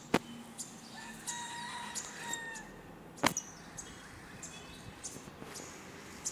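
Canaries chirping, with short high chirps scattered through and one held note lasting about a second and a half. Two sharp clicks stand out, one at the very start and one about three seconds in.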